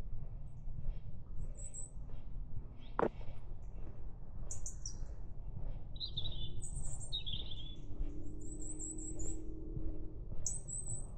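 Small woodland songbirds calling and singing in short, very high, thin phrases and trills, with a lower twittering phrase or two. Beneath them run faint regular footsteps on a forest track, and one sharp click sounds about three seconds in.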